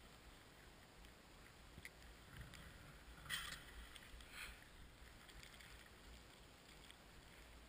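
Faint hiss of a snowboard sliding over powder snow, with two brief louder swishes about three and four and a half seconds in.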